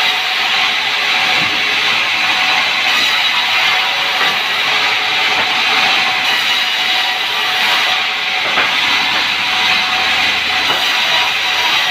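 Sawmill saw running steadily through a log, a continuous noise with faint steady tones in it.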